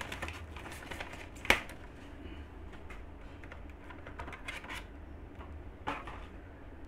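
Scattered small clicks and knocks of a Manfrotto Pixi Mini tabletop tripod being handled and opened, with one sharp click about a second and a half in.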